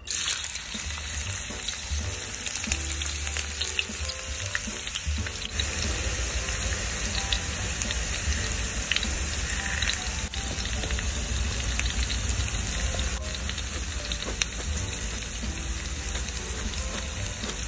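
Chopped onion frying in hot oil in a pan: a steady sizzle with scattered crackles and pops, starting suddenly as the onion hits the oil.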